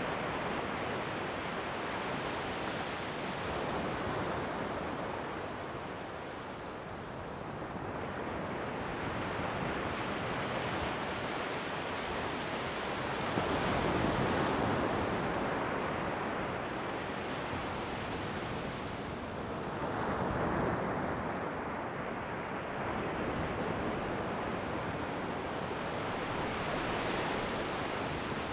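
Ocean waves breaking and washing on the shore: a continuous rush of surf that swells as each wave breaks, about four times, most strongly about halfway through.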